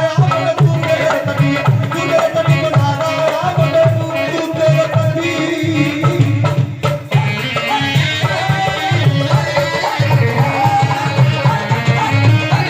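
Live South Asian folk music with a tabla and drum rhythm under held melodic notes, played loud.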